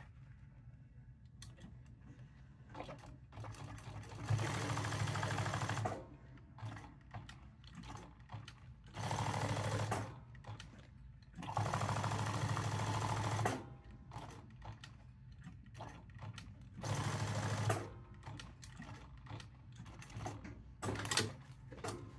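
Jack S5 industrial sewing machine stitching a leather patch onto a hat, running in four short bursts of one to two seconds with pauses between. Light clicks fill the gaps between runs.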